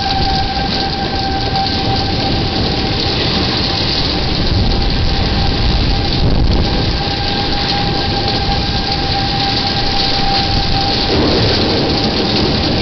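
Storm wind and heavy rain hitting a security camera's microphone as a loud, steady noise. A distant tornado siren holds a steady tone over it.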